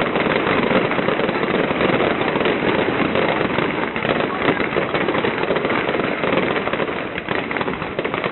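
Fireworks display going off in a continuous run of crackling pops and bangs.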